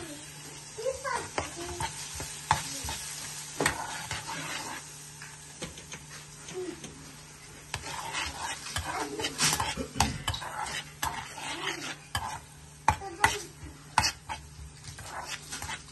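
Food sizzling in a hot pan while a spoon stirs and scrapes through it, with many sharp clicks of the utensil against the pan.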